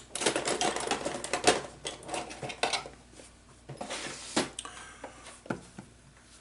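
Rapid clattering and knocking of small hard objects being handled and moved on a workbench, dense for the first three seconds, then a few scattered knocks.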